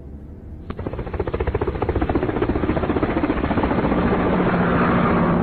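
A fast, even chopping sound effect, helicopter-like, starts sharply under a second in and grows louder. A low steady hum joins it near the end.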